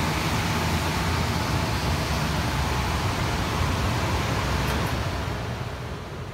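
Garment thread-sucking machine running: its suction blower makes a steady rush of air with a low hum, dying down near the end.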